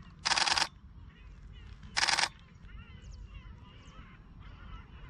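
A flock of gulls calling in the distance, many overlapping short calls that thicken after the first couple of seconds. Two loud, short bursts of noise cut in over them, about a second and a half apart.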